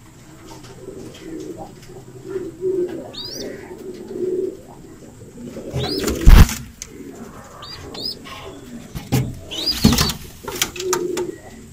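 Pigeons cooing over and over, with a few quick high chirps. There are two loud knocks, one about six seconds in and another near ten seconds.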